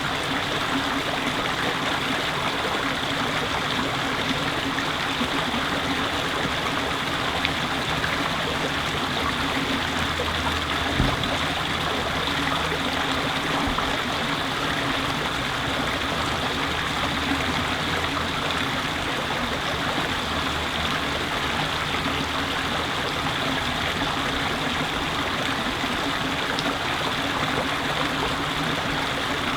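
Running water flowing steadily, a constant rushing wash, with one brief low thump about eleven seconds in.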